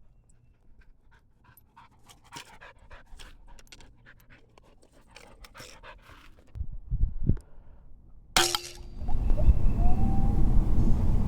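Springer spaniel panting in quick, soft breaths. About eight seconds in there is a sharp burst, followed by loud, rough rumbling noise.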